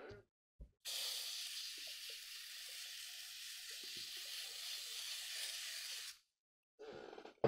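Aerosol spray starch can spraying in one continuous hiss for about five seconds, cutting off abruptly, with a soft knock just before it starts.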